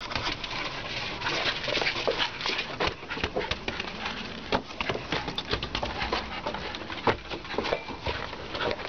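Scottish terrier puppy making excited dog noises while scuffling after a ball, with a dense run of irregular scuffs and knocks from paws and ball on the snowy deck.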